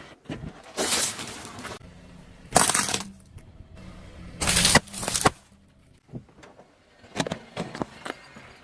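Objects crunching and cracking as they are crushed under a car's tyre: three noisy crunches, each up to about a second long, then a quick run of sharp cracks near the end.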